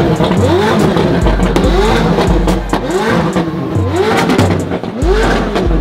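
Straight-piped McLaren engine revved in quick repeated blips, about two a second, each rising and falling in pitch, over music with a deep bass line.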